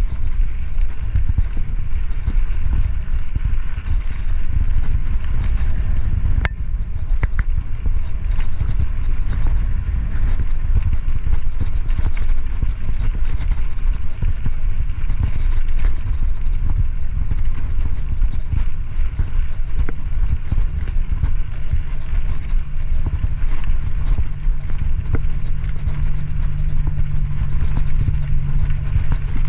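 Wind buffeting the microphone of a camera on a moving bicycle, with road rumble and irregular rattles from the ride over the pavement. There is one sharp click about six seconds in, and a steady low hum joins about two-thirds of the way through.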